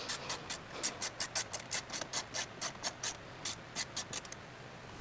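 Hand ratchet clicking as a dash screw is backed out, a rapid run of sharp clicks at about five a second that stops a little over four seconds in.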